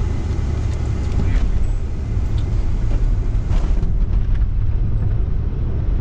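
Road and wind noise inside a moving car: a steady low rumble with a couple of brief knocks.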